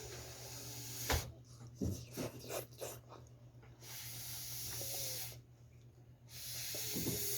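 Breath blown out hard three times in long hissing puffs, as if cooling hot pizza that has just come out of the oven, with a few short clicks and small eating noises between them.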